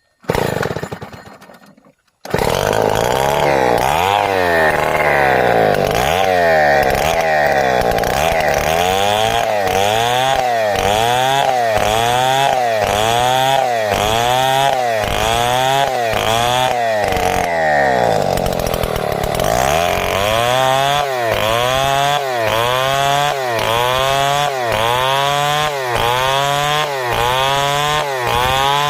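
Two-stroke chainsaw cutting lengthwise through timber to saw boards. After a short sound in the first two seconds, the engine runs continuously from about two seconds in, its pitch rising and falling over and over roughly once a second as the saw is worked through the wood.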